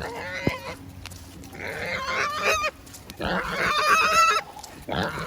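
A farm animal crying out in distress: a short call, then two long, loud cries about two and three seconds in.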